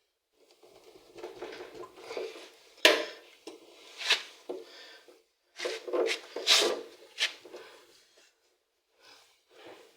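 Hand-work on a washing machine's thermostat fitting: rubbing and rustling of parts with several sharp clicks and knocks, the loudest about three seconds in and again around six to seven seconds.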